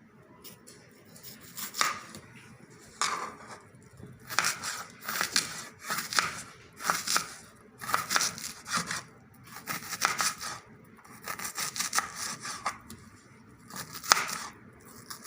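Kitchen knife cutting an onion on a chopping board: irregular slicing strokes and taps against the board.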